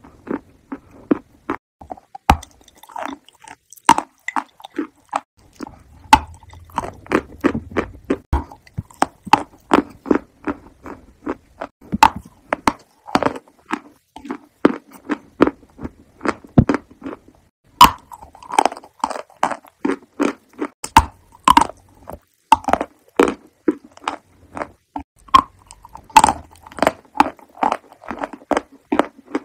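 Close-miked eating: a person chewing and biting, with a dense run of sharp, wet mouth smacks and crunchy clicks, several a second.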